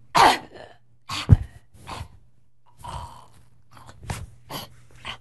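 A young woman gasping for breath in a string of short, ragged gasps, the loudest about a second and a half in, acting out suffocating for lack of oxygen.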